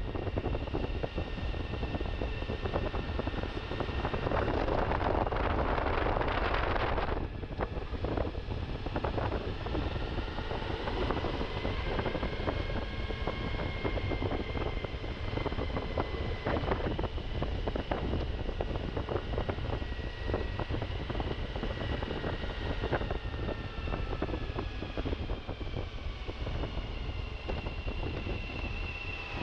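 Suzuki V-Strom motorcycle engine running on an off-road ride, its pitch slowly rising and falling, under heavy wind buffeting on the microphone. A louder rush of noise comes from about four to seven seconds in.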